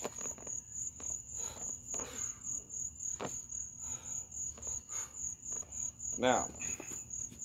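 Crickets chirping steadily in a high, evenly pulsing trill. A sharp click comes about three seconds in, and a short burst of a person's voice a little after six seconds.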